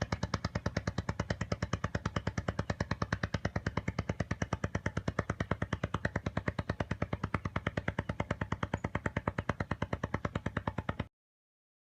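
Music with a rapid, evenly spaced pulsing beat that cuts off suddenly near the end.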